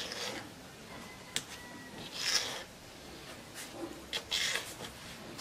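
A kitchen knife cutting pieces off a roll of yeast dough on a floured counter: a few soft scraping swishes, with a light click about one and a half seconds in.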